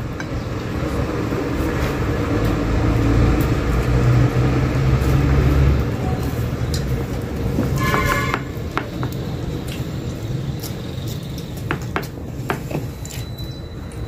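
A low rumble that builds and fades over the first six seconds, under small clicks and taps of two people eating by hand from glass plates; a brief high tone sounds about eight seconds in.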